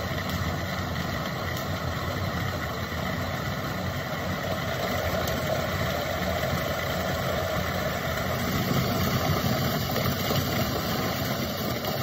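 Niche Zero conical-burr coffee grinder running steadily as it grinds a dose of whole beans. The grinder is very quiet.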